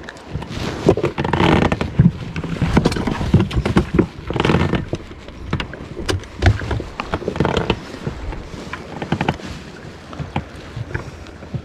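Choppy sea water splashing and slapping against the rubber tube of an inflatable boat in irregular surges, with sharp knocks among them.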